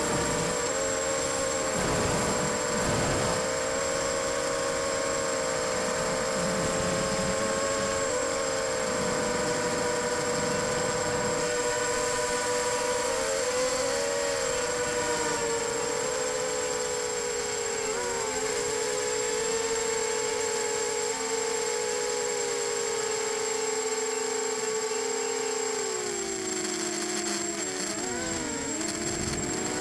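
Brushless motors of an Emax FPV quadcopter whining as heard through its onboard camera, the pitch wavering with throttle changes and dropping lower about 26 seconds in. Wind buffets the microphone in the first few seconds, and a thin high steady tone runs underneath.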